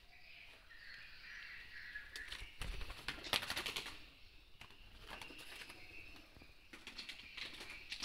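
Swiftlets chirping and twittering in a swiftlet house, with a louder rustling burst about three seconds in and scattered clicks.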